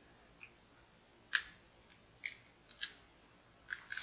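Cracked glass back of a Samsung Galaxy Note 10+ being pried off its frame: a few sharp, irregular cracks and clicks as the glass and its adhesive give way.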